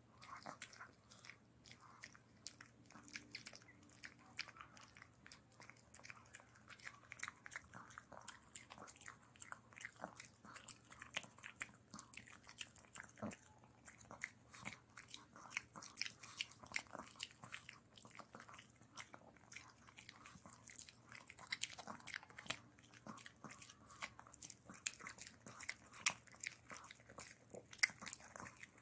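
Chihuahua gnawing and crunching a dental chew stick: a continuous irregular run of small crisp crunches and clicks.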